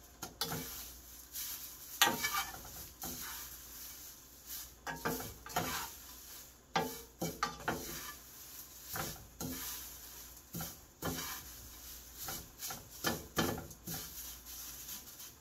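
A wooden spatula and wooden chopsticks stir crumbled seasoned laver (gim) and sesame seeds in a nonstick frying pan, making irregular scraping and rustling strokes against the pan.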